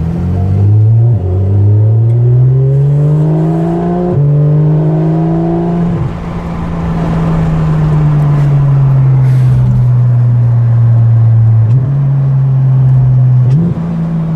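Porsche 991 GT3 RS flat-six with a full Akrapovic exhaust accelerating hard: revs climb and fall sharply at quick upshifts about one, four and six seconds in. It then holds fairly steady revs that ease slightly, and the revs jump up again briefly near the end.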